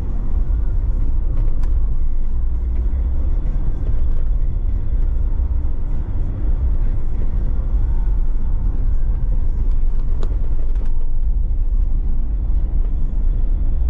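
Car driving steadily along a narrow country lane, heard from a camera mounted on the bonnet: a loud, steady low rumble of wind on the microphone mixed with engine and road noise, with a few faint clicks.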